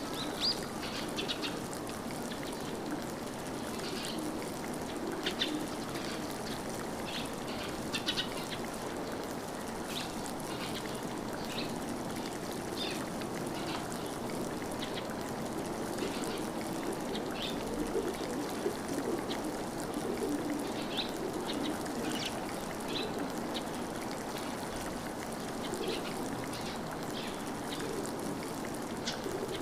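Birds chirping with short, scattered high calls over a steady background of running water.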